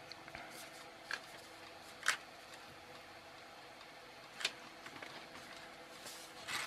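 Light handling noises from a small circuit board with component leads poking through it being turned over and set down on a cutting mat: a few short clicks and taps, then a brief rustle of the paper instruction sheet near the end, over a faint steady hum.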